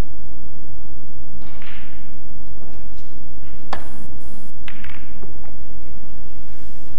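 Snooker cue tip striking the cue ball with one sharp click, then about a second later the clack of the cue ball hitting the pack of reds, followed by a few fainter ball contacts.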